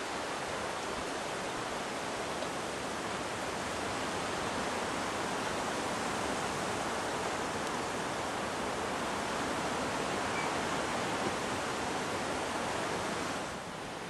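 Strong, gusty wind: a steady rushing hiss with no other distinct sound, easing slightly near the end.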